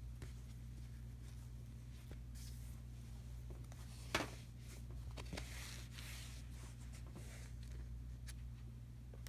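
Soft fabric rustling as a hand moves a shaggy bath rug, with one sharp click about four seconds in, over a steady low hum.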